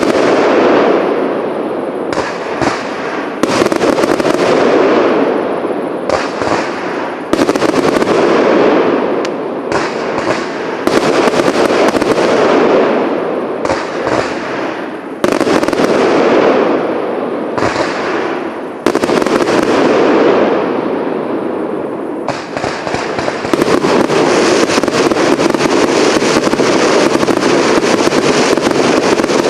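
Fireworks cake firing shot after shot, a sharp bang every one to three seconds, each followed by a fading hiss. About three-quarters of the way in it breaks into a continuous rapid run of pops and crackles.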